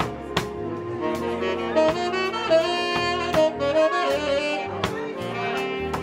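Live band playing a smooth jazz instrumental: a saxophone carries the lead melody with vibrato over keyboard chords, a low bass line and a drum kit whose cymbal strokes keep the beat.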